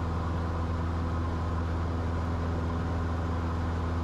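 Cessna 172's piston engine and propeller droning steadily at climb power.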